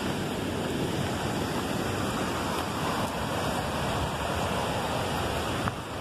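Waterfall rushing, a steady even noise of falling water that dips briefly near the end.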